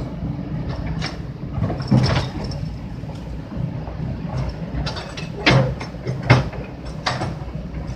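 A heavy vehicle engine running steadily with a low hum, with several sharp knocks or clanks over it, the loudest about two, five and a half and six seconds in.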